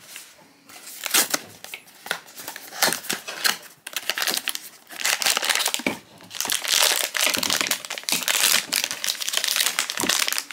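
Foil blind-bag wrapper crinkling and crackling as it is handled and pulled open. Scattered crackles at first, becoming a dense, continuous crinkle about four seconds in.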